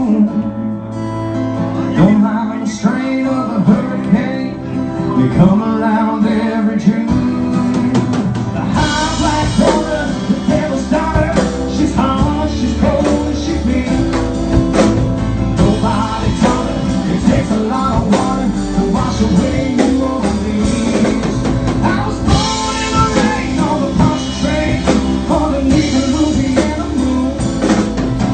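Live band playing an instrumental break in a country-rock song, guitar over drums, with the bass and drums coming in fully about nine seconds in.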